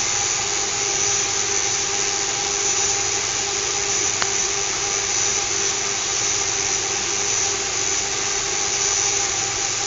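Small electric motor of a fischertechnik monorail carriage running steadily, a high whine over an even hiss.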